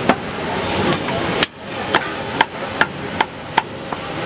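Butcher's cleaver chopping goat meat on a wooden tree-stump chopping block: a run of sharp chops, about two to three a second, the loudest about a second and a half in.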